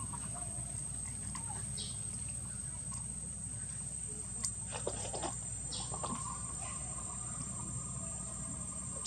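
Outdoor ambience: a steady high-pitched whine and a low hum throughout, with a few short chirps and scattered soft clicks.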